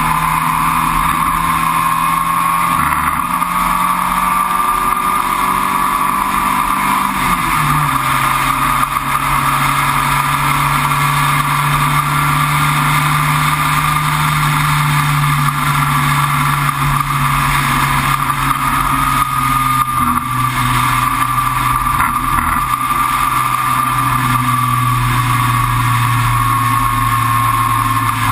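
Sports racer's engine running at a fairly steady speed, heard onboard over wind and road noise. Its note steps down once about seven seconds in, then holds.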